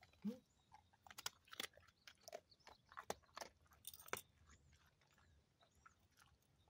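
A dog crunching and chewing a dry treat: quick, sharp crunches that come thickly for about four seconds, then thin out.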